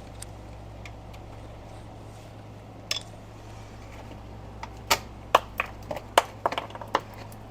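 Sharp metallic clicks and clinks of a hand wrench working a small fastener: one near three seconds in, then a quick irregular run of about ten between five and seven seconds, over a steady low hum.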